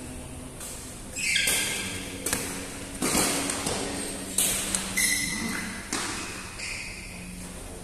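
Badminton rackets hitting a shuttlecock in a fast doubles rally: about six sharp hits roughly a second apart, each with a short ring in the hall. Brief squeaks from shoes on the court mat come with a couple of the hits.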